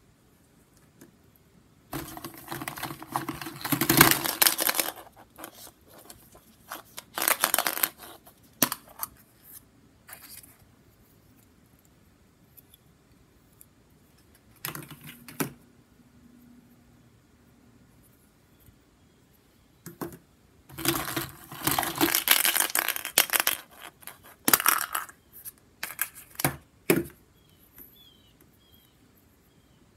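Hollow plastic Easter eggs clattering and knocking against each other and the plastic tub as they are handled and opened, in several spells of rattling with quiet stretches between.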